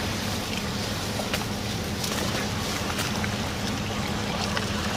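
A motor hums steadily and evenly under a constant hiss of wind and water.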